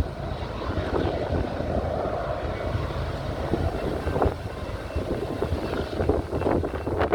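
Union Pacific freight train rumbling steadily, with wind buffeting the microphone in gusts.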